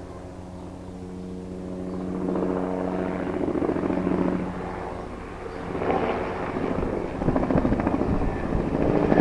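Helicopter flying nearby: a steady engine and rotor tone swells, and from about six seconds in the rotor blades beat in a rapid chop that grows loudest near the end.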